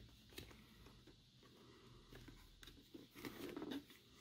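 Faint rustling and small clicks of hands tucking a wire into a motorcycle helmet's padded liner, with a short burst of handling noise about three seconds in.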